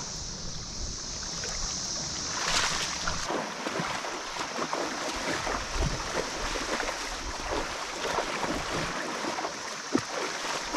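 Creek water splashing and lapping, with many small irregular splashes and one louder splash about two and a half seconds in.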